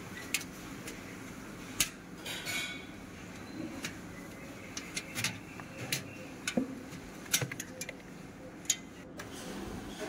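Scattered small clicks and clinks, with a brief scrape, as hands unclip and pull the old defrost heater element out from under a refrigerator's finned aluminium evaporator coil.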